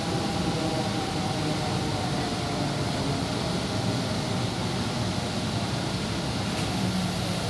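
Metro train running along an elevated track, heard from inside the carriage: a steady rumble and rush of running noise. A faint whine fades out in the first couple of seconds.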